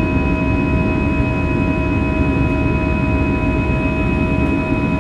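Airbus A320's CFM56-5B turbofan engines at climb power, heard inside the cabin: a steady roar with several steady whining tones over it, the fan's buzzsaw.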